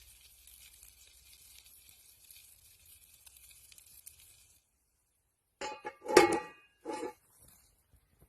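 Faint steady hiss, then three quick ringing clinks of metal or glass cookware being handled about six to seven seconds in.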